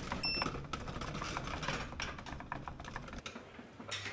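Emoose portable power station giving a short high beep as its DC output button is pressed, followed by a run of irregular light clicks and taps. Near the end the clicks stop and a low steady hum takes over.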